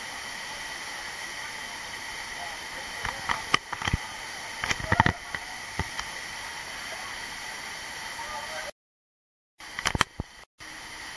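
Steady rush of a waterfall, with a few short sharp knocks or clicks in the middle and near the end; the sound cuts out for about a second near the end.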